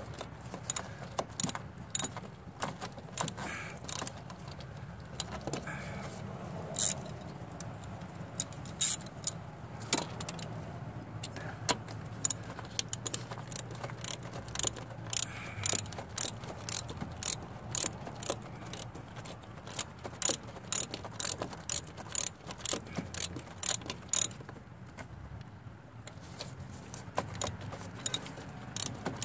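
Socket ratchet clicking as the thermostat housing bolts are run down. The clicks come scattered at first, then in quick runs of several a second from about halfway, with a brief pause near the end.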